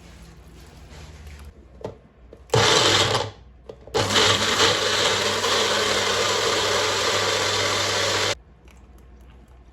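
Electric blender puréeing red berries with orange juice: a short pulse of under a second, then a steady run of about four seconds that cuts off suddenly.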